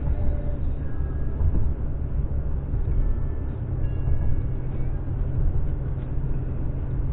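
Road noise inside a moving car's cabin: a steady low rumble of tyres and engine.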